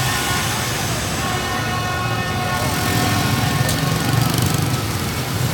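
Dense motorbike traffic: many small engines running together in a steady drone, with a few held high tones fading out in the first couple of seconds.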